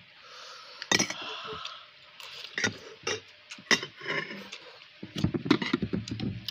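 Eating noodles from a bowl: slurping and chewing mouth sounds, with a metal spoon clicking against the bowl a few times.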